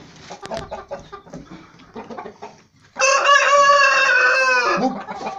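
Scattered knocks and rustling from the handling of the wooden cage, then about three seconds in an Aseel rooster crows once, loud and held for nearly two seconds, dropping in pitch at the end.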